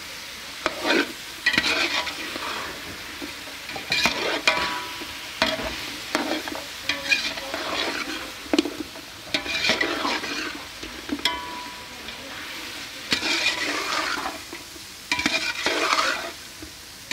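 Chicken pieces sizzling in hot oil and masala in a steel pot while a metal slotted spatula stirs them, scraping the pot in irregular strokes about every one to two seconds, some with a short metallic ring.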